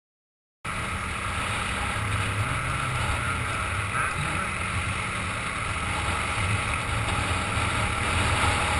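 Off-road motorcycle engine running under heavy wind noise on the microphone, a steady rumbling hiss that starts abruptly about half a second in.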